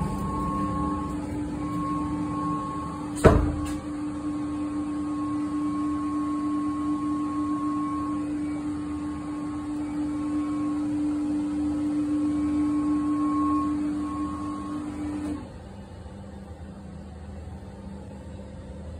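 Steady hum of basement plant machinery, with one sharp knock about three seconds in. The hum cuts off suddenly about fifteen seconds in, leaving a quieter background.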